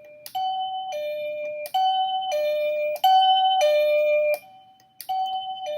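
Wireless doorbell receiver playing its two-note ding-dong chime at each press of its volume button, stepping through its volume levels. There are three ding-dongs, each louder than the last, then a very faint ding and another ding-dong at a lower level. Each ring starts with a sharp click.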